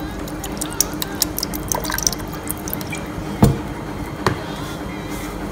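Apple cider vinegar being poured into a glass blender jar over chopped vegetables, with many small drips and splashes. Two louder knocks come about three and a half and four and a half seconds in.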